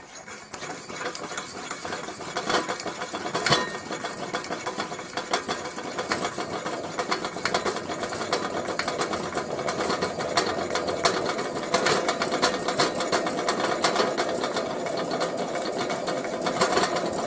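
Coleman Model 220 white-gas lantern burning while its generator heats up: rapid, uneven crackling and sputtering over a steady hiss, slowly growing louder as the fuel starts to vaporize.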